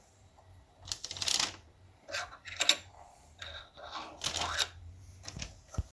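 Small hardware and wooden parts being handled and fitted on the plywood dulcimer kit: several short bursts of clicking and rattling, with a sharp single click near the end.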